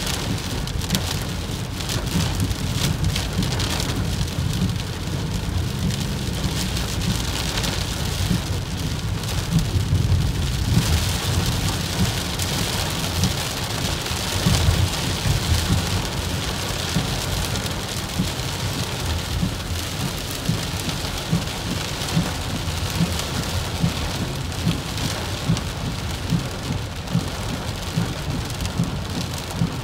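Heavy rain pattering on a car's windshield and roof, heard from inside the moving car over a steady low rumble of the car on the wet road.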